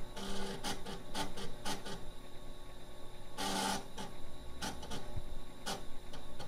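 IBM Displaywriter 8-inch diskette drives working: irregular clicks and short scraping rasps, with a longer rasp about three and a half seconds in.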